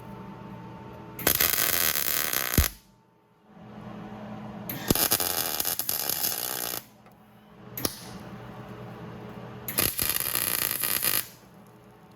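Three short bursts of electric arc welding, each one to two seconds, as a plate is welded onto the Jeep's frame to carry the clutch and brake pedal shaft; a steady low hum runs between the bursts.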